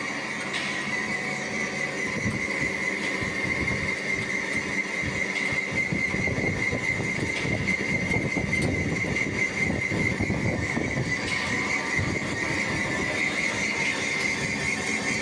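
Special-purpose twin-side CNC turning machine running, with a steady high-pitched whine and a rougher, noisier stretch through the middle.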